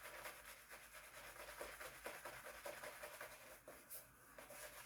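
Faint, rapid brushing strokes of a boar-bristle shaving brush working soap lather on skin.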